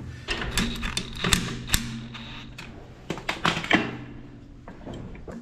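Sharp metal clicks and knocks as new brake shoes are pressed and worked into place on the backing plate of a Ferguson TEF20's rear drum brake, coming thick and irregular and then thinning out near the end.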